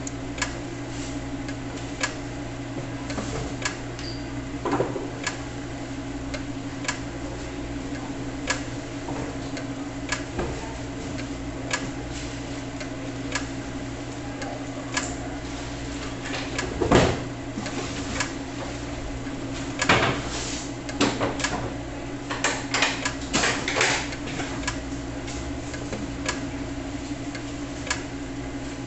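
Gural electric cheese slicer running with a steady motor hum, its carriage sliding across the blade with frequent light ticks. A few louder knocks and rattles come around two-thirds of the way through.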